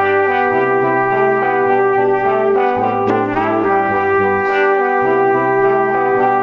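Background music: sustained brass-like chords held over a bass line that changes note about every second or so.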